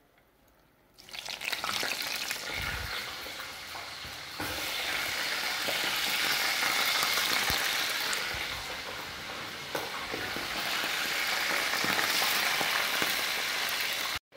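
Raw linguiça sausages sizzling as they go into hot oil in a pot, the frying hiss starting suddenly about a second in and staying steady.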